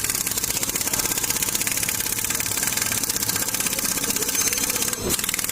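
Impact wrench hammering in a fast, even rattle, undoing a nut on the clutch side of a Royal Enfield Bullet engine; it breaks off briefly about five seconds in.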